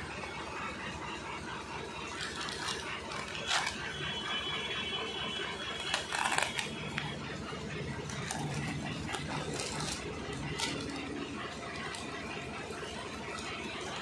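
Paper and plastic parts packaging rustling as it is handled and opened, with a few short sharp clicks.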